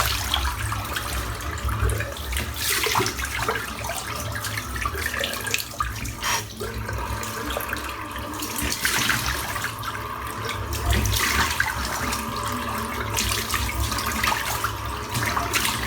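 Tap running into a bathroom sink while water is splashed onto the face by hand, the flow surging and splashing unevenly, with a steady low hum underneath.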